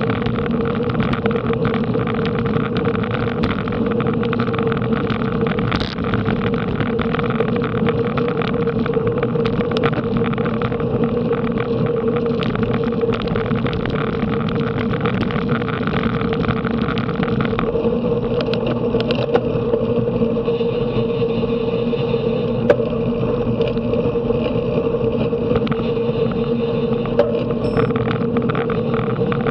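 Steady rush of wind over the microphone and road noise from a bicycle ridden at race speed, with a few small clicks and rattles.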